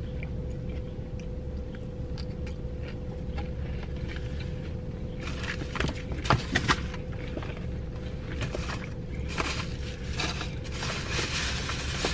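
Someone eating takeout green beans topped with crispy onions from a box: small clicks and scrapes of a utensil and chewing, over a steady low hum. The handling and crunching get busier about halfway through and again near the end.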